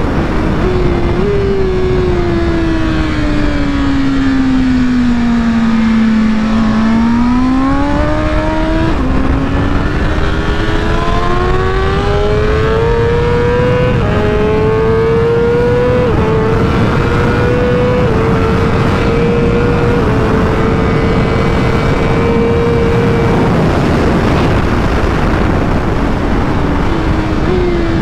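BMW M 1000 RR superbike's inline-four engine under way at high speed, heard from the bike over heavy wind rush. The revs sag, then climb through the gears, the pitch dropping back at each upshift. They hold high for several seconds, then fall off with stepped downshifts near the end.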